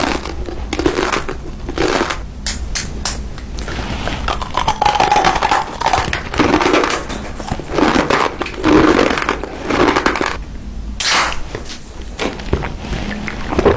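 Close-miked eating: irregular crunching and chewing of food.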